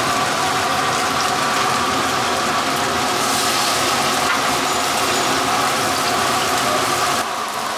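Vegetable jeon batter sizzling in hot oil on a flat griddle as ladlefuls are spooned out and spread, a loud steady frying hiss with a faint mechanical hum beneath it. The sizzle changes abruptly near the end.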